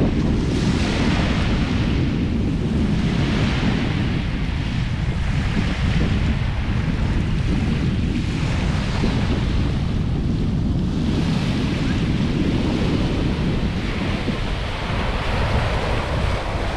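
Wind buffeting the microphone, a heavy steady rumble, over ocean surf that rushes in and ebbs in swells every two to three seconds.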